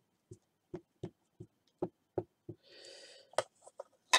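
A run of light taps on the craft table, about three a second, with a short breath-like hiss near the end.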